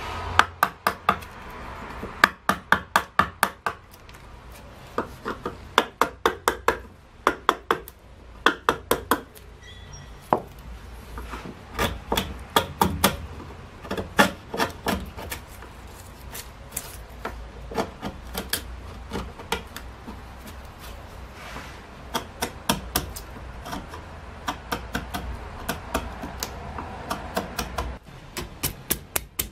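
A hand chisel cutting cedar wood in relief carving. It makes runs of quick, sharp clicks and taps, several a second, with short pauses between the runs.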